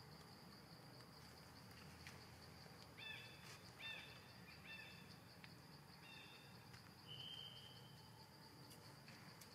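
Faint forest ambience: a steady high insect drone, with a run of short chirping calls about three seconds in and a longer held call note around seven seconds.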